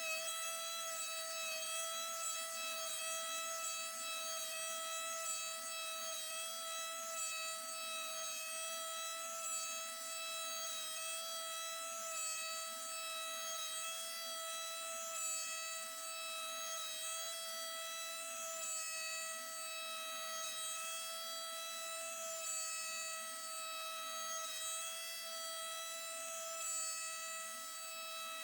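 Onefinity CNC router's spindle running at a steady high whine as the bit cuts a counterbore pocket into plywood. A softer low hum rises and falls about once a second underneath.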